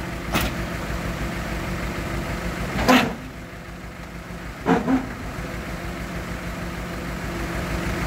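Heavy diesel engine idling steadily with a low pulsing beat. A few short sharp knocks break it, the loudest about three seconds in and a quick pair near five seconds.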